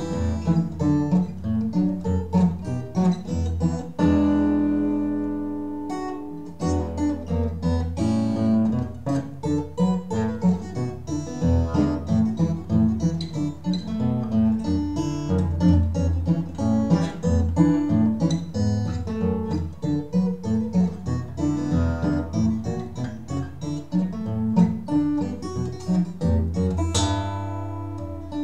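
Solo acoustic guitar picking an instrumental passage of a 1901 popular song, with melody notes over a bass line. About four seconds in a chord is left to ring for a couple of seconds, and near the end a quickly strummed chord rings out.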